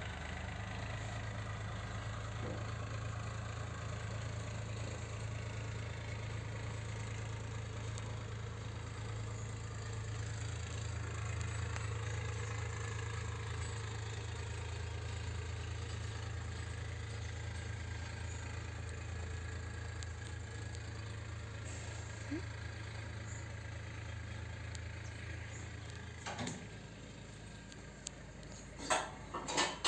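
A steady low mechanical hum, like a motor running, that stops about 26 seconds in. Near the end come a few clinks of steel dishes.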